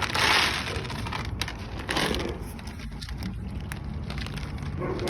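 Crunching and rustling noise, loudest in a burst right at the start and again about two seconds in.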